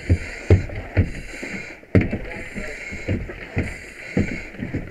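Irregular knocks and thumps of a firefighter moving through a smoke-filled room, with the hiss of breathing through an SCBA mask regulator coming and going every second or so.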